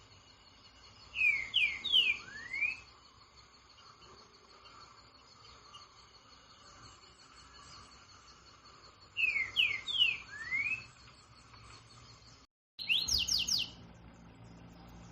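A songbird sings a short clear phrase of four whistled notes, three quick slurred notes and then one rising note, twice about eight seconds apart, over a steady high insect drone. Near the end the sound cuts out for a moment and a fast run of sharp high notes follows.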